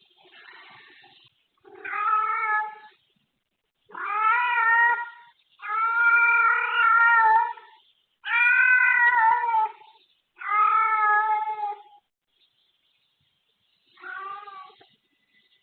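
A domestic cat caterwauling: six long, drawn-out yowls of a second or two each, then a shorter, fainter one near the end. Such calls are typical of a female cat in heat, as the owner suspects of the cat Nabi.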